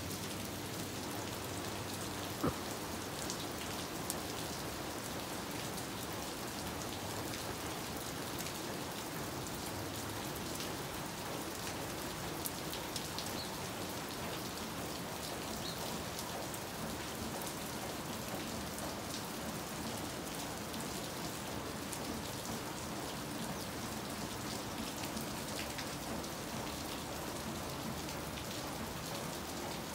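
Steady rain falling on clay-tile roofs and a paved street: an even hiss with scattered single drops ticking close by.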